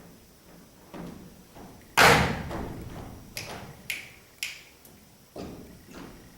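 Glasses and cutlery knocked and set down on a table in a rhythmic pattern: one loud thud about two seconds in, then a few sharper clinks that ring briefly, and two more dull knocks near the end.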